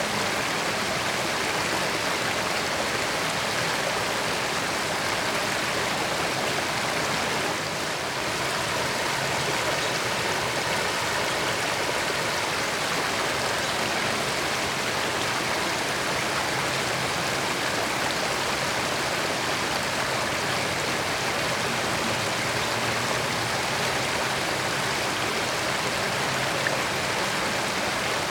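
A creek's flowing water, a steady, even rush with no breaks.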